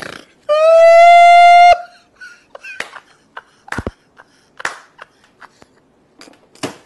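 A single loud horn blast lasting just over a second, its pitch rising slightly at the start, then holding steady until it cuts off sharply. Scattered short clicks and knocks follow.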